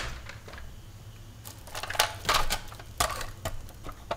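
Handling noises from a toy truck being picked up out of a wicker basket: a few separate clicks and knocks of the toy's plastic and metal body against the basket and hands.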